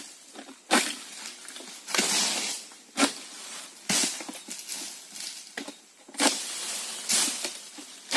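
Long-pole harvesting sickle (egrek) cutting oil palm fronds in repeated pulls, roughly one a second: sharp cracks and rustling as the blade bites, with a longer swish of leaves as a cut frond comes down.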